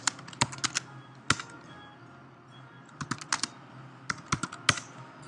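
Computer keyboard being typed on, sharp key clicks in quick bursts with a pause of about a second and a half in the middle.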